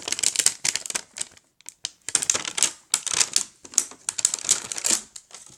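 Wrapping of a toy package being torn and peeled open, crinkling and rustling in irregular bursts with short pauses.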